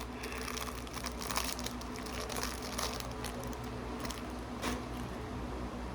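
Plastic toy packaging crinkling and rustling as it is handled and opened, with scattered small crackles over a steady low hum.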